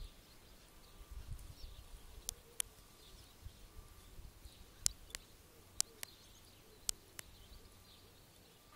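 Quiet outdoor ambience by a pond with a low rumble early on and faint bird chirps. From about two seconds in it is broken by about eight sharp clicks, mostly in close pairs, which are the loudest sounds.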